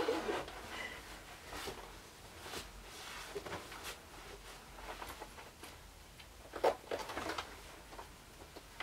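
Rustling and brushing of a zebra mascot costume's fabric as it is pulled up over the shoulders and adjusted at the collar: a string of short scrapes, with a louder cluster about two-thirds of the way through.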